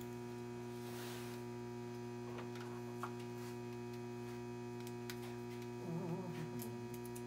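Steady electrical mains hum, a low buzz with a ladder of overtones, with a few faint clicks over it.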